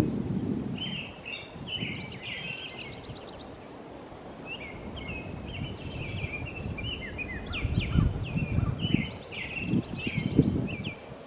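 Several small birds chirping and calling in quick, overlapping bursts, with gusts of wind rumbling on the microphone near the start and again near the end.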